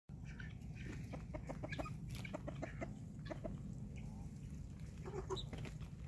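Helmeted guineafowl and other free-ranging poultry calling in a rapid series of short clucks, with a few more calls about five seconds in, over a steady low rumble.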